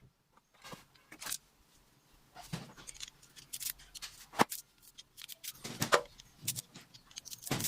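Irregular clicks and short scrapes of hand work pulling copper winding wire out of a floor-fan motor's stator, metal on metal.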